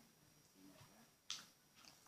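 Near silence, with a faint voice early on and one sharp, short click a little over a second in.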